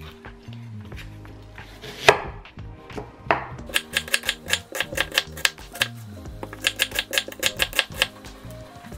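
Chef's knife cutting an onion on a wooden cutting board: a single hard knock about two seconds in, another a second later, then two runs of quick, even chops.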